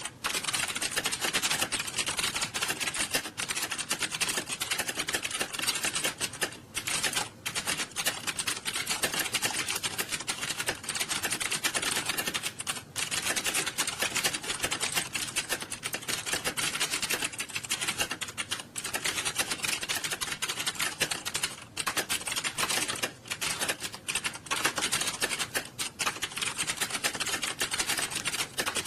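Many computer keyboards being typed on fast at once: a dense, continuous clatter of key clicks from a hall full of candidates taking a timed typing test, with only a few brief lulls.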